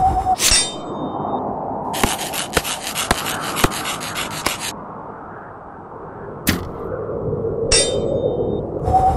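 Sound effects of ninja throwing stars striking, with sharp metallic clangs that ring briefly: near the start, about 6.5 s in, near 8 s and at the end. A stretch of rapid rattling clatter runs from about 2 to 5 seconds in.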